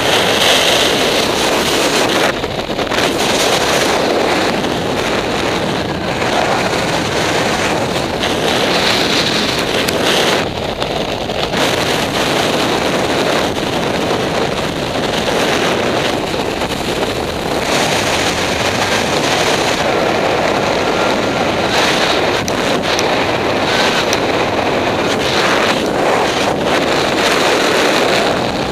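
Wind rushing over the microphone while gliding down under a parachute canopy, a steady rush that swells and eases in gusts with a few brief lulls.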